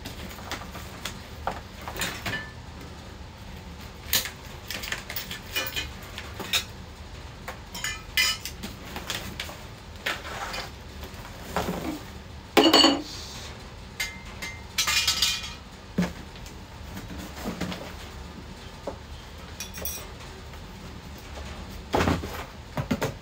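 Metal frame parts of an animatronic clinking and clattering as they are handled in a cardboard box, with scattered knocks and clicks. Two longer scraping, rustling noises come about halfway through, and a louder knock near the end.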